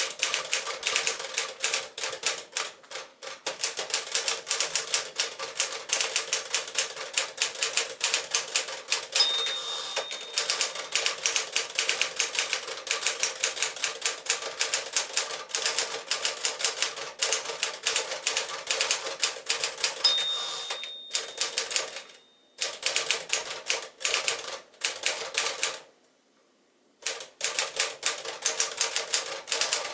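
Steady, rapid typing on a 1963 Smith-Corona Sterling (5AX) manual typewriter, its typebars clacking against the platen. The carriage bell rings twice, about 9 and 20 seconds in, and the typing breaks off for about a second near the end.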